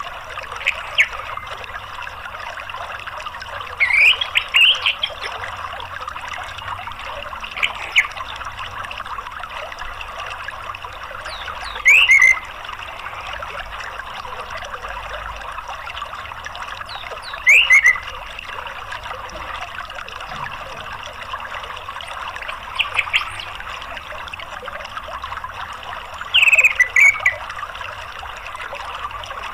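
Steady rushing of running water with an orange-headed thrush giving short calls every few seconds, several sliding down in pitch. It is a lure-and-therapy recording played to coax a silent captive orange-headed thrush into calling.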